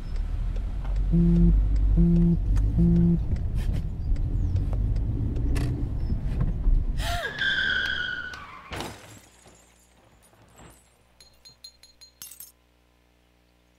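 Car engine running, with three short buzzes like a phone vibrating about a second in; around seven seconds a falling screech like skidding tyres, then a crash with shattering glass.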